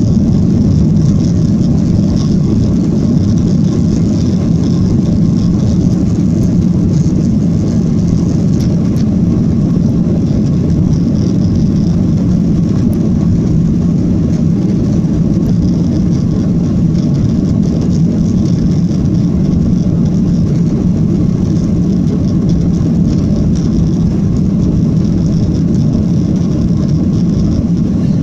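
Cabin noise of a Boeing 737-800 on its takeoff run: a loud, steady roar from the CFM56-7B engines at takeoff thrust, heard through the cabin wall.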